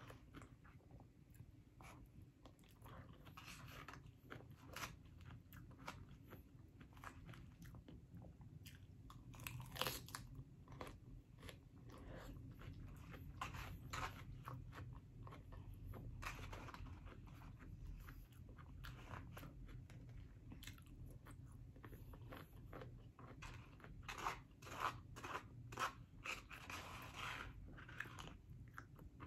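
Close-up crunching and chewing of crisp salad, lettuce and cucumber, many bites one after another, with sharp wet crackles.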